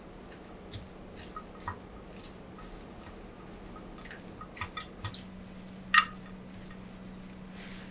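Wooden chopsticks tossing dressed, julienned carrot and yellow bell pepper in a glass container: light wet stirring with scattered clicks of the chopsticks against the glass, the sharpest click about six seconds in.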